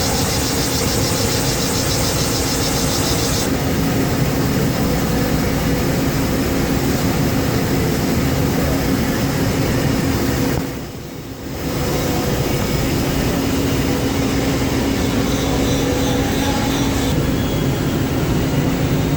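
Mori Seiki SL4 two-axis CNC lathe running while cutting a part: a steady mechanical hum with a steady tone in it. A higher hiss sits over it for the first few seconds and comes back near the end. The sound briefly drops away about halfway through.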